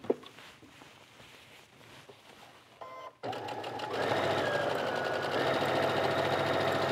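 Sewing machine quiet for about three seconds, then starting up and running steadily with a fast needle rhythm, getting louder about a second after it starts, as it stitches a 5/8 inch seam around a V-neck facing.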